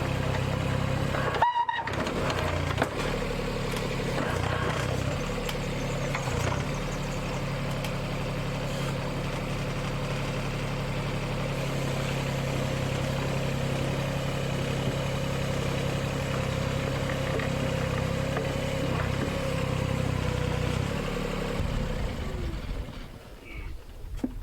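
Komatsu PC05-7 mini excavator's engine running steadily while digging, dropping away about two seconds before the end.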